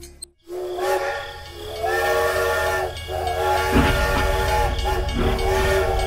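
Steam locomotive whistle, several tones sounding together as a chord, blown in repeated long blasts. A low rumble of the train running joins about halfway through.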